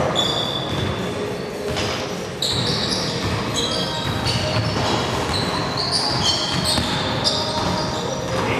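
Pickup basketball game on a hardwood gym floor: sneakers squeak in many short, high chirps over the ball bouncing and players' feet thudding, echoing in the large gym.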